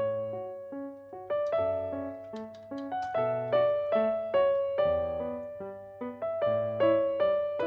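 Background piano music: a gentle melody of struck, decaying notes over lower bass notes.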